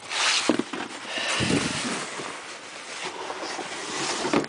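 Packaging rustling and crinkling as it is handled, with a few light knocks.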